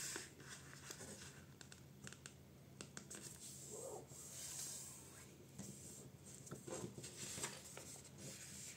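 Paper being folded by hand into a paper airplane: faint rustling and crinkling, with small taps and fingers rubbing along the creases, and a longer swish of paper sliding about halfway through.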